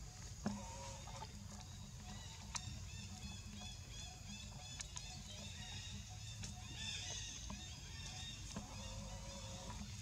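Birds calling: a fast run of short high chirps through the middle, and lower drawn-out calls near the start and again near the end. A single sharp tap comes about half a second in, over a steady low rumble.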